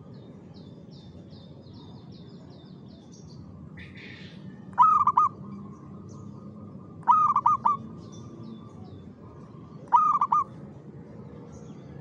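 Zebra dove (perkutut) cooing: three short rolling phrases of quick, low notes, a couple of seconds apart. Faint high chirps of small birds run in the background.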